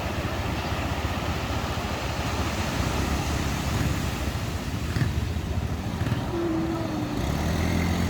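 Ocean surf washing onto a beach: a steady, low rumbling wash. About six seconds in a brief pitched tone and then a short low hum break through it.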